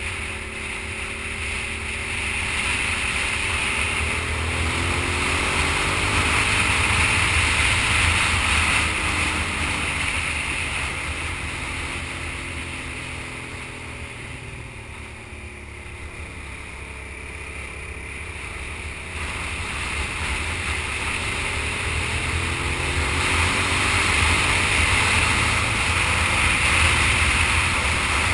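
Sport motorcycle engine pulling through a series of curves, its pitch rising as it accelerates about four seconds in and again after about twenty seconds, and easing off, quieter, in between. Steady wind rush on the microphone runs under it.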